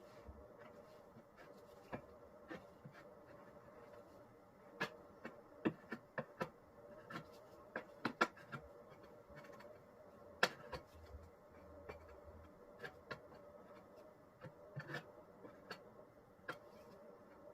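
Faint, irregular scraping and tapping of a hand tool working Henry Feather Finish cement patch, with a dozen or so sharper clicks in the middle, over a steady hum.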